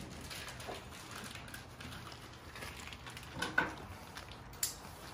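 A plastic bag being handled and tugged at with oily hands: light rustling, with a few short sharp clicks about three and a half seconds in and another near four and a half seconds.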